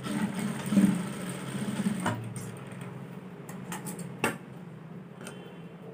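Industrial single-needle sewing machine stitching a short seam for about two seconds, then stopping. A quieter steady hum carries on, with a few sharp clicks afterwards.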